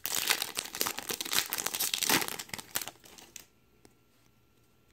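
The wrapper of a 2017 Topps Update Series baseball card pack being torn open and crinkled: a dense crackling that stops about three and a half seconds in. It is followed by a few faint ticks as the cards are handled.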